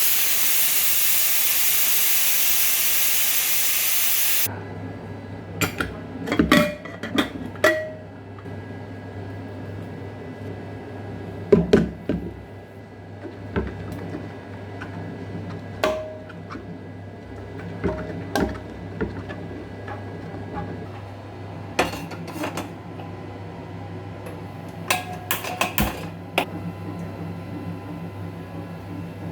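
A loud, even hiss that cuts off suddenly about four and a half seconds in. After it, metal kitchen utensils and pots clink now and then, some of the clinks ringing briefly, over a steady low hum.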